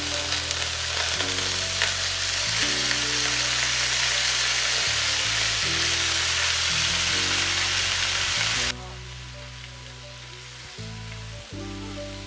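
Beef tenderloin and mixed vegetables sizzling as they fry in a hot skillet. The sizzle cuts off abruptly about three-quarters of the way through, leaving background music.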